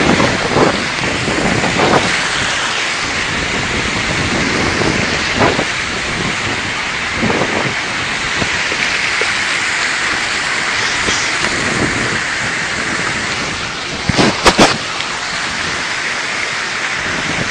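Heavy rain pouring down steadily in a storm, a loud, even hiss. Two or three sharp knocks come late on.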